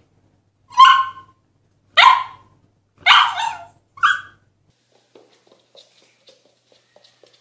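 Husky puppy barking: four short, high yelping barks about a second apart, the third drawn out longer.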